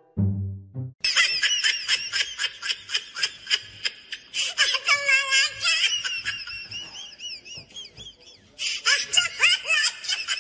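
A person laughing and shrieking in rapid high-pitched bursts, about five a second, with a rising and falling pitch. A brief bit of music comes first.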